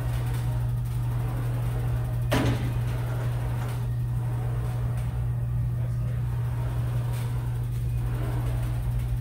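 A steady low hum, with a single sharp knock about two and a half seconds in and fainter knocks later.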